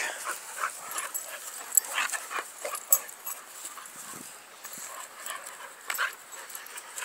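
Dogs rough-playing, with scattered short whimpers and yips.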